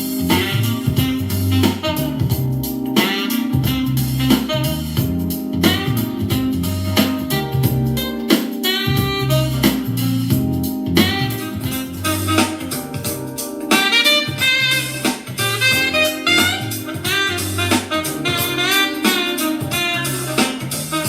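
Jazzy music with a saxophone lead over a pulsing bass line, played through a small portable Bluetooth speaker.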